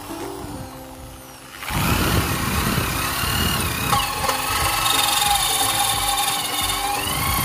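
Power drill running a titanium-coated HSS hole saw into steel box-section tubing. Under two seconds in, the motor comes up loud and the saw cuts with a steady whine and wavering high squeals of metal cutting, over background music.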